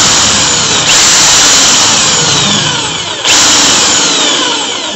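Drill press with a 1/8-inch bit cutting into a brass padlock body, boring the hole that reaches the lock's pin-chamber cap so the cap can be pried out. It runs in two stretches, with a short drop in level about three seconds in, then fades near the end.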